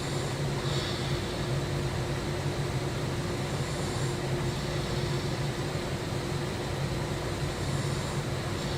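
Steady low hum and hiss, like a fan or air conditioner running, with a faint higher hiss about every four seconds in time with a sleeper's breathing.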